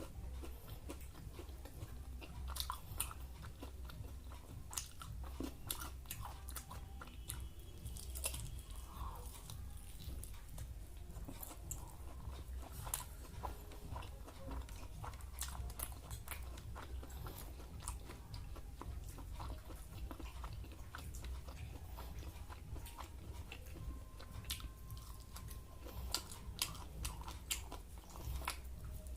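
Close-up chewing and biting of food, with frequent short sharp crunches, as fried Maggi noodles and crispy chicken pakora are eaten. A steady low hum runs underneath.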